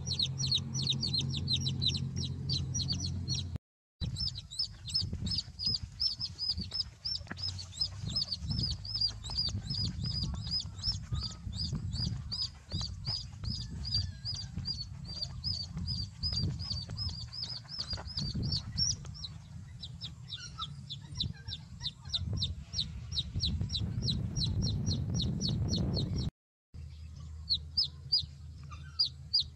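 Young chicks peeping: a rapid, steady run of high cheeps, about five a second, over a low rumble. The sound breaks off twice for a moment.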